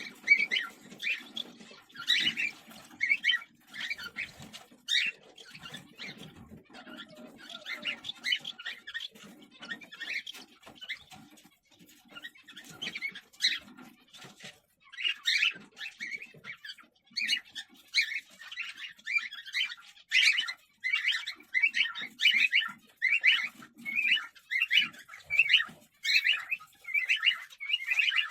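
Cockatiel chick giving runs of short, rapid, repeated calls, typical of a nestling begging to be fed, with a quieter lull midway.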